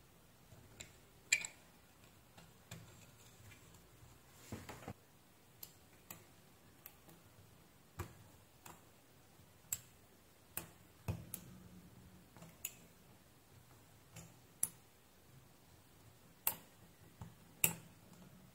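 Quiet, sharp clicks and small scrapes at irregular intervals, about one a second, as a utility knife blade pries and cuts at the moulded plastic and metal shell of a USB-C cable connector to open it.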